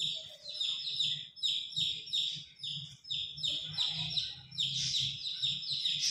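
Birdsong: a bird chirping over and over in short, falling chirps, about three a second, with a faint low rumble beneath.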